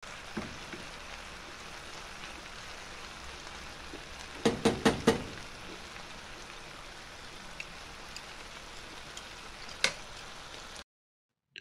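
Pan of cabbage, carrot, sweet pepper and saltfish sizzling steadily as it cooks down, with a quick run of four sharp knocks about halfway through and one more near the end. The sizzle cuts off shortly before the end.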